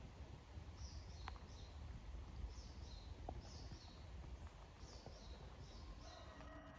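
Faint room ambience with a low rumble, over which small high chirps repeat, mostly in pairs, about once a second. A short, faint steady tone comes in near the end.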